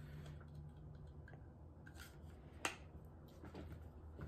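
Faint handling of a karambit knife, with soft ticks and one small sharp click about two and a half seconds in, over a low steady hum.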